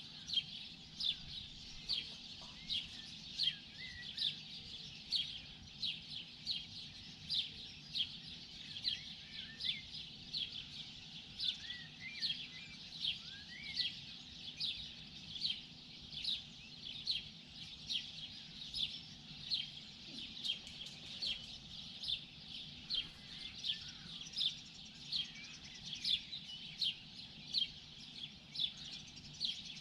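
Birds chirping in the morning: one bird repeats a short, high, falling chirp about twice a second, with fainter calls from other birds behind it, over a faint low steady hum.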